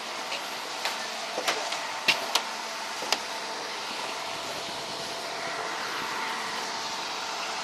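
A steady mechanical hum with several sharp knocks or clicks in the first three seconds.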